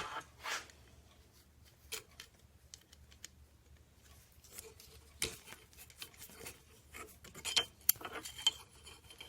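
Small metal hardware, bolts and lock washers, being handled and fitted: irregular light clicks, clinks and short scrapes, busiest near the end.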